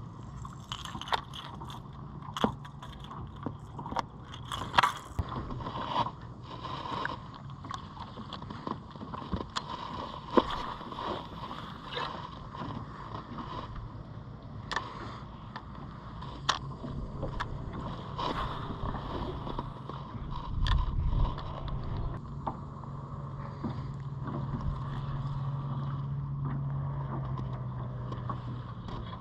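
A small boat motor humming steadily on a jon boat, with scattered sharp clicks and knocks against the hull and tackle, most of them in the first dozen seconds, and a dull thump about 21 seconds in.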